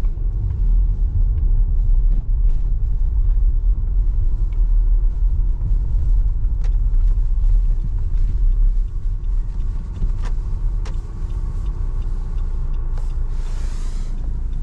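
Steady road and engine rumble inside the cabin of a moving Nissan car, with scattered light knocks and a short hiss about a second before the end.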